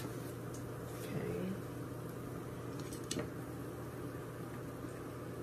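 Quiet kitchen background with a steady low hum, a brief murmured voice about a second in, and a single light click about three seconds in as kitchen tongs handle a fried potato ball.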